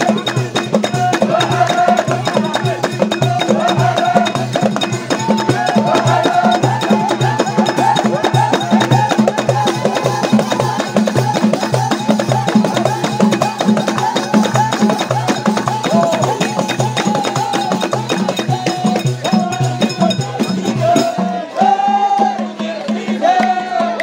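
Live Moroccan village folk music from a crowd: many voices chanting together over frame drums and steady rhythmic hand clapping.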